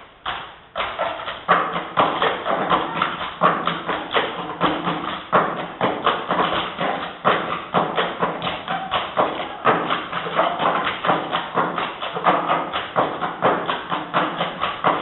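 Live stage percussion: a fast, dense rhythm of sharp wooden knocks and taps played by several performers together.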